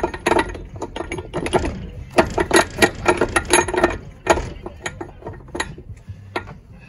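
Irregular runs of metallic clicks and clanks from hand tools and steel parts, wrench work while taking out a semi truck's driveshaft.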